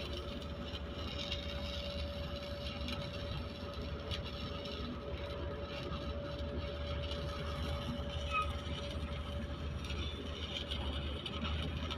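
Arc welding on heavy equipment: a steady crackling hiss over the constant hum and whine of a running welding machine.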